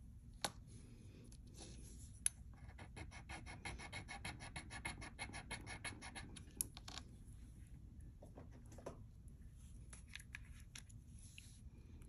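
A gold ring rubbed quickly back and forth across a black touchstone, a fast, faint, even scratching of many short strokes lasting a few seconds. It is laying down a metal streak on the stone for an acid test of its 14 karat gold mark. A couple of light clicks come before it, and a few lighter scrapes follow.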